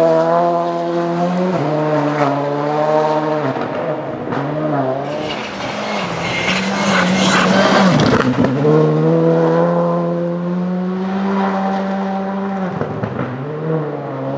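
Rally car engine at high revs on a gravel stage, its note holding and then stepping down with gear changes. About eight seconds in, a car slides past sideways with gravel spraying from its tyres, and the engine pitch drops as it goes by.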